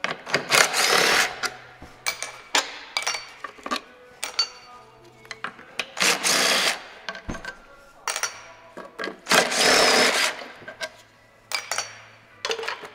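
Cordless impact driver run in short bursts of about a second, its motor whining, backing out the valve-cover bolts on a Caterpillar 3406 diesel engine. Short metal clicks fall between the bursts.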